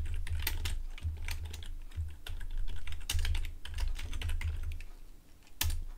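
Typing on a computer keyboard: a run of irregular key clicks, with one louder keystroke near the end.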